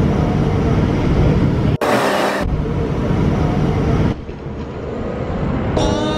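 City bus in motion heard from inside: steady engine and road noise, with a short hiss about two seconds in. Music comes in near the end.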